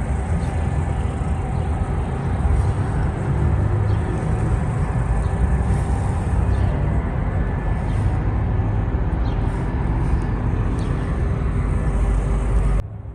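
Steady low rumbling background noise, like road traffic, that cuts off abruptly near the end.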